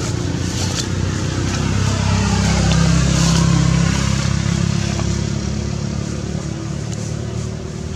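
A motor vehicle engine passing by, growing louder to a peak about three seconds in and then fading away.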